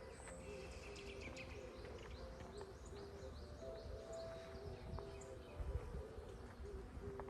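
Small songbirds chirping, with many short, quick high chirps repeating over a low rumble.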